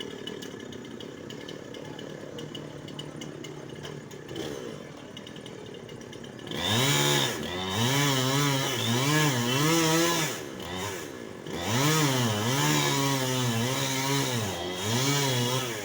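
Chainsaw running low at first, then from about six seconds in revved hard and cutting into wood, its pitch repeatedly dipping and rising as it bites. It eases off briefly just after ten seconds, then revs and cuts again.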